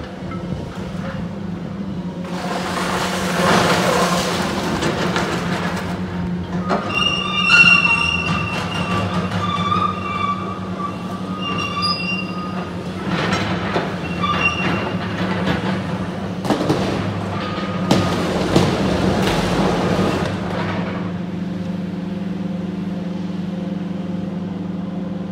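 Cat excavator tearing apart an airliner's metal fuselage: the engine drones steadily under several bouts of crunching, tearing metal, with high drawn-out metal squeals near the middle.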